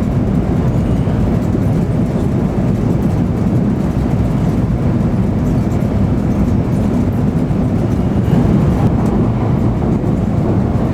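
N700-series Shinkansen running at high speed, a steady low rumble heard from inside a passenger car.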